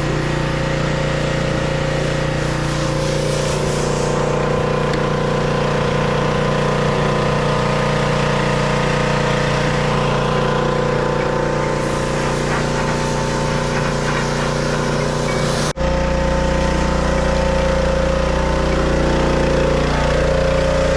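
Pressure washer running steadily, its motor drone under the hiss of the water spray. The sound breaks off for an instant about 16 seconds in and carries on with a slightly different tone.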